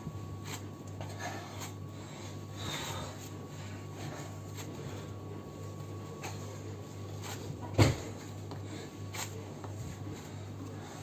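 Hands kneading a lump of steamed rice-cake dough on a countertop: soft rubbing and pressing, with one sharp knock about eight seconds in. A steady low hum runs underneath.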